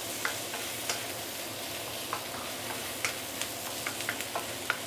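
Roast pork and Chinese leeks sizzling in a nonstick wok as they are stir-fried: a steady frying hiss, with a wooden spatula scraping and knocking against the pan in scattered, irregular clicks.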